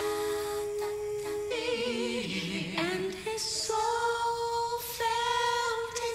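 Three women singing together in close harmony, holding long notes with vibrato and moving between chords.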